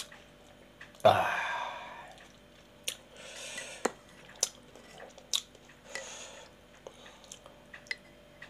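Mouth noises of a person tasting a thick homemade grated-ginger and palm-sugar cough mixture: a loud slurp about a second in that fades out, then lip smacks, swallowing and breaths.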